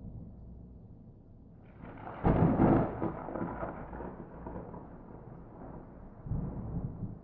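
Thunder: a sudden loud crack of a close lightning strike about two seconds in, trailing off into a rolling rumble, with another lower rumble near the end.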